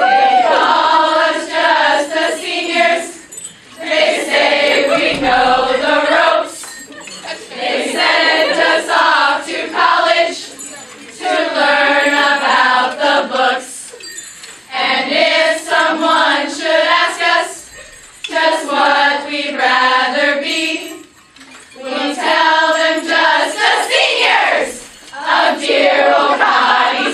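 A group of women singing a song together, in phrases of two or three seconds with short breaks between them and no instrument heard underneath.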